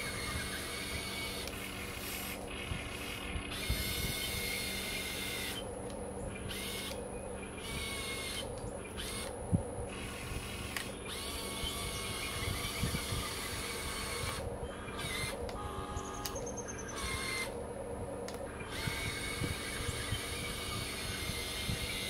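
Small electric motors and gearboxes of a Huina 1580 radio-controlled excavator whining, starting and stopping in short spells as the machine is worked. There is one sharp knock near the middle.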